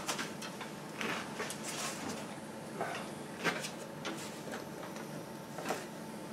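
Light handling sounds: a few soft clicks and rustles as a sheet of card is handled and put up against a shelf.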